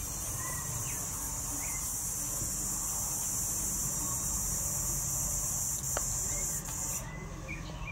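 Steady, high-pitched insect buzz that cuts off suddenly about seven seconds in.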